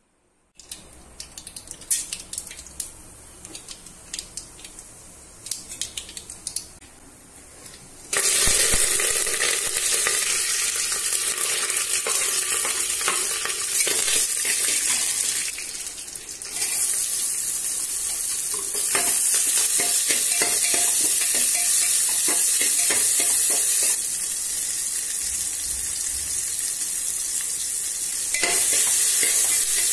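Mustard seeds crackling in hot oil in an aluminium pressure cooker, with scattered sharp pops. About eight seconds in, a loud sizzle starts as more ingredients go into the hot oil, and continuous frying follows with a spoon stirring and scraping against the pot.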